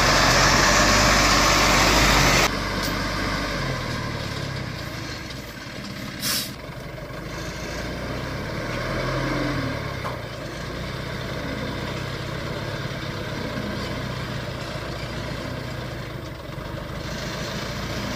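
Custom-built haul truck's engine running at low, varying speed on a descent. Over it comes a loud, steady hiss that cuts off suddenly about two and a half seconds in, then a brief sharp hiss about six seconds in.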